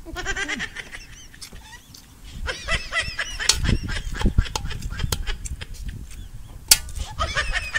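Poultry calling in three quick runs of repeated high calls, at the start, in the middle and near the end. Between them come sharp clicks and scrapes of a metal spoon against a steel wok, the loudest a little before the end.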